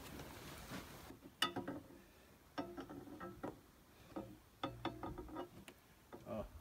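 Faint, irregular clicks, taps and scrapes of a homemade wire poker tool being worked through a wedged-open car door gap, feeling for the interior lock button.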